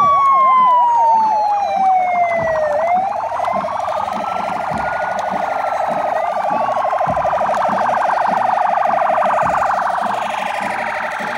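Police vehicle sirens sounding together. One wails slowly, falling in pitch, then rising and falling again. A second siren warbles quickly at the start, then pulses rapidly through the middle.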